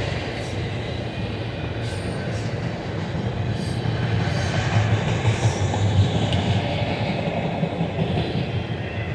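Freight train's autorack cars rolling past at speed: a steady rumble of steel wheels on rail, with a few louder clacks about halfway through.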